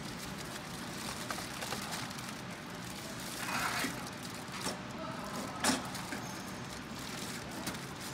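Aluminium-foil flexible duct crinkling and scraping as it is worked onto the metal outlet of a centrifugal exhaust blower, with small handling knocks; a rustling scrape about three and a half seconds in and a sharp knock a little later, the loudest sound, over a steady background hiss.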